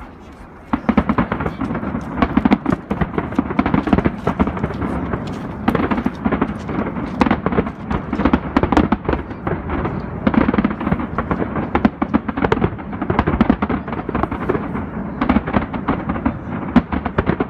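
Aerial fireworks display: a dense, continuous barrage of bangs and crackling bursts, starting abruptly about a second in.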